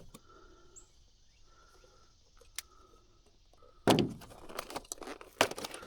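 Faint short calls of animals repeating about once a second, then a loud knock about four seconds in followed by rustling and clicks of handling.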